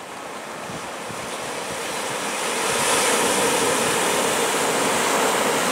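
Sea surf washing in over shore rocks, a steady rushing that builds over the first few seconds and then holds.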